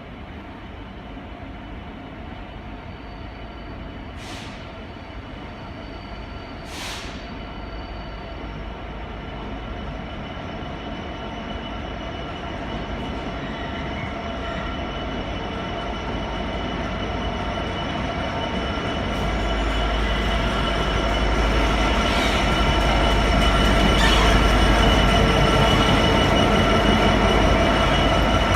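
Class 66 diesel-electric locomotive, with its two-stroke V12 engine, approaching with a heavy freight train. Engine and wheel noise grow steadily louder, and a heavier low rumble sets in about two-thirds through as the train draws near.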